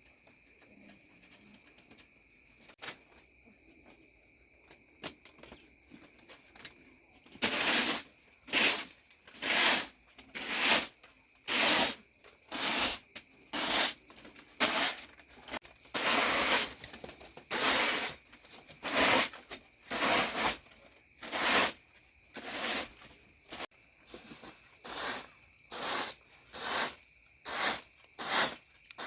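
Faint steady high insect-like drone with a few light clicks, then, from about seven seconds in, a regular series of loud swishing, scraping strokes, about one a second, like a tool or broom worked by hand.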